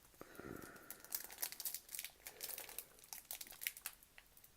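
Crinkling and tearing of a trading-card pack wrapper being pulled open by hand, a steady run of small crackles.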